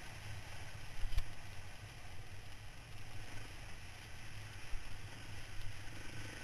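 Dual-sport motorcycle engine running at a steady low drone under rushing wind noise from the helmet-mounted camera. A sharp knock comes about a second in and a smaller one near five seconds, as the bike jolts on the rough dirt track.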